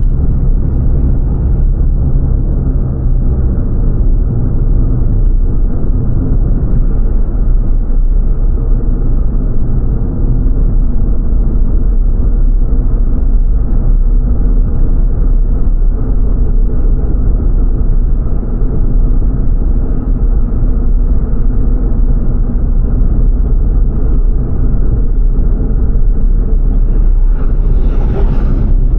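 Car driving along a road, heard from inside the cabin: steady low tyre and engine rumble. Near the end comes a short whoosh as an oncoming SUV passes close by.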